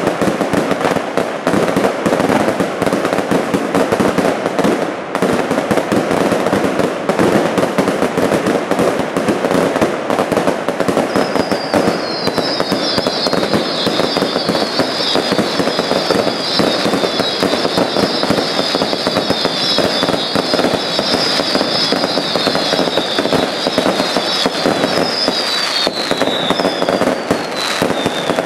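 Aerial fireworks display: a dense, unbroken barrage of bangs and crackling from bursting shells and rising tails. From about twelve seconds in, many overlapping shrill whistles, each falling in pitch, sound over the barrage until near the end.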